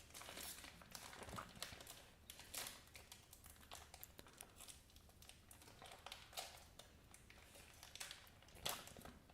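Reese's Crispy Crunchy candy-bar wrapper crinkling faintly as it is handled and opened, in irregular crackles.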